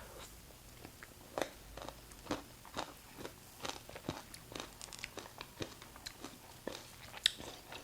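Close-miked mouth sounds of eating a spoonful of Dairy Queen Blizzard ice cream with crunchy candy bits. Quiet chewing is broken by irregular small clicks and crunches, about two or three a second.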